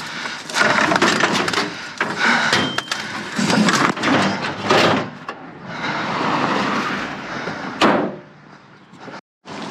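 Rummaging through a dumpster: objects being shifted and knocked about, a run of irregular clattering knocks and rustles, then a steadier rustling stretch and one sharp knock near the end.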